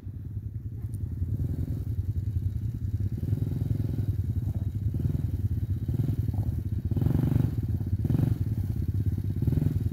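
ATV (quad bike) engine running as it approaches along a dirt trail, growing louder, with brief throttle surges a few times in the second half.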